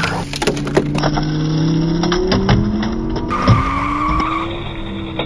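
Race-car engine sound effect revving slowly upward with tyre squeal. Under it come several sharp clacks from die-cast toy cars running down a wooden track and landing in a catch box.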